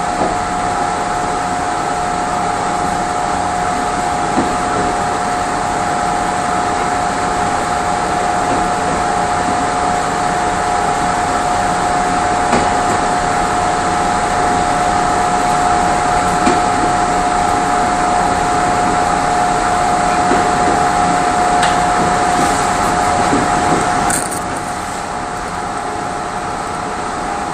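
Mugunghwa passenger train running uphill, heard inside its last coach: a steady rumble of wheels on rail with a steady whine over it, and a few faint clicks. The whine cuts off about 24 seconds in and the running noise drops a little.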